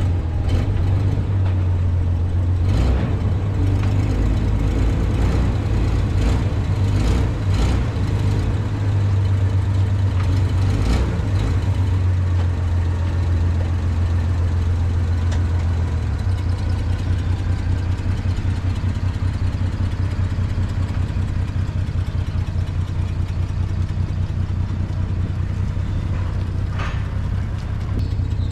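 An engine idling steadily with a low, even hum. A few short knocks come in the first twelve seconds and one more near the end.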